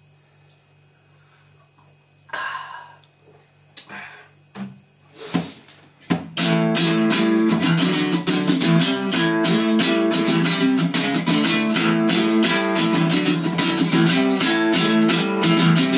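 A few soft clinks and knocks of china teacups. Then, about six seconds in, a nylon-string classical guitar and an archtop guitar start playing together: a steady, rhythmic plucked and strummed chord accompaniment.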